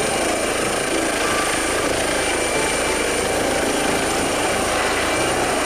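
Eurocopter EC135 air ambulance helicopter lifting off and climbing away: steady rotor and turbine noise with a thin, high-pitched whine running through it.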